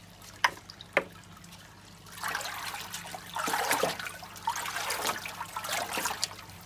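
Water in a 200-litre plastic tank being stirred by hand, sloshing and splashing. Two brief sharp sounds come about half a second and a second in, then continuous churning sloshing from about two seconds in until just before the end.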